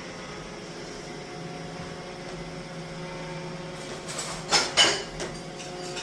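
Robot vacuum cleaner running with a steady motor hum, with a couple of short bumps a little past halfway.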